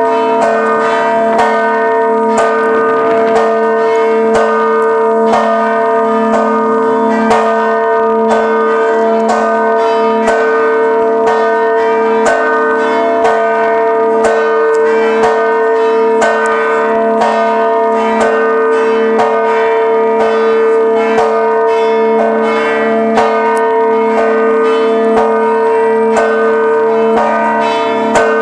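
Several church bells of a Maltese parish church ringing a festive procession peal. The strikes come in a steady, fast rhythm over one deep bell tone that hums on without a break.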